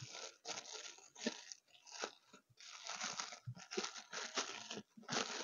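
Plastic packaging crinkling and rustling in irregular short bursts as it is handled, fairly quiet.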